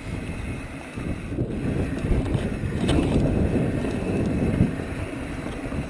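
Wind buffeting the microphone of a camera riding on a mountain bike descending a dirt trail, mixed with the tyres rolling over the ground, with a sharp knock about three seconds in.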